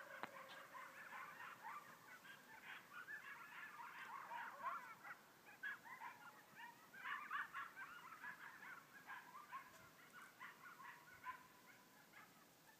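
Coyotes yipping and howling: a faint, fast jumble of high yips with a drawn-out howl mixed in, dying away near the end.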